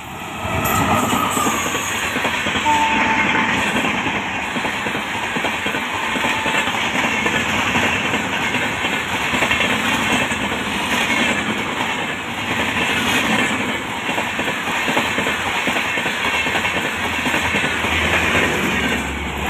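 Express train coaches behind a WAP-5 electric locomotive passing close by at high speed: a loud, steady rumble and rattle of wheels over rail joints, with a few short high tones in the first seconds.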